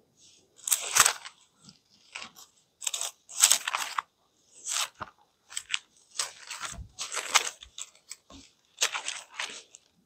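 Thin Bible pages being leafed through and turned, a run of short, irregular crisp rustles.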